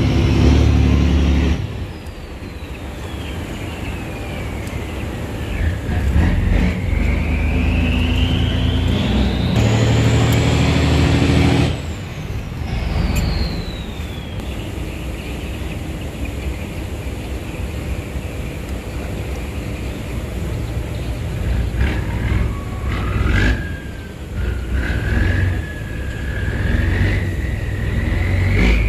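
Cargo boat's diesel engine running through throttle changes while the boat turns around. Its note drops at about two seconds and again near twelve. A high whine falls, climbs over several seconds and falls again, then climbs steadily over the last few seconds as the engine speeds up.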